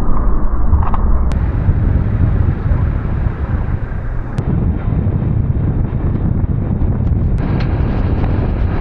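Strong wind buffeting the microphone, a steady rumbling roar with no clear pitch.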